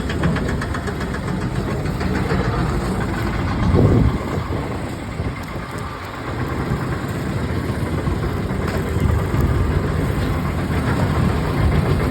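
Heavy machinery running with a steady, engine-like drone and rapid pulsing, with a louder low surge about four seconds in.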